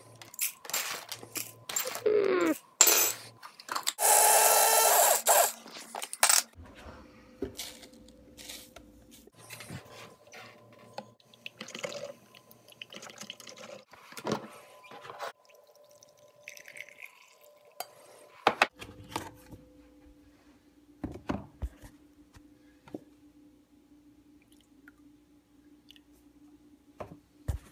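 Coffee beans rattling as they are scooped in, then an electric blade coffee grinder running loudly for about two seconds. After it come scattered clinks and knocks of kitchenware.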